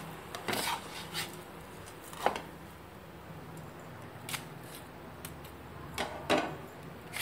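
Spatula scraping and clicking against a dosa tava and a plate as a cooked dosa is lifted off and set down: a handful of short, separate scrapes over a faint steady hum.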